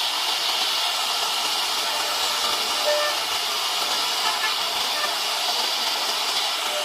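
CNC router cutting a 2D design into a wooden bed panel: a steady high hiss of the spindle and bit working the wood.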